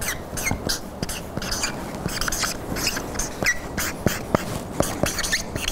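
Marker writing on a small whiteboard in a rapid run of short strokes: scratchy squeaks, some rising or falling in pitch, with sharp ticks of the tip on the board in the second half.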